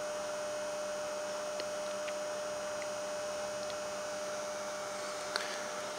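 Steady electrical hum and hiss of background room tone with a thin steady tone in it, broken by a few faint ticks.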